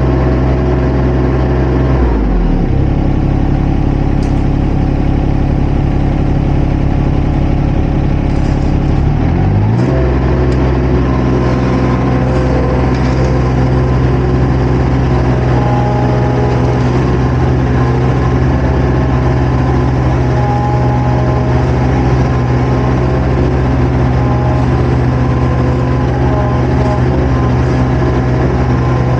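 Compact construction machine's diesel engine running close up from the operator's seat. About two seconds in the engine speed drops, and just before ten seconds it revs back up and holds steady.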